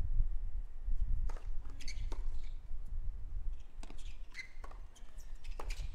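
Tennis rally on a hard court: racquets strike the ball several times, a second or two apart, with a brief shoe squeak in the middle.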